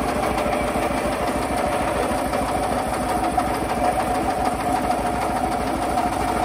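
Kubota walk-behind tractor's single-cylinder diesel engine idling steadily, with an even chugging beat.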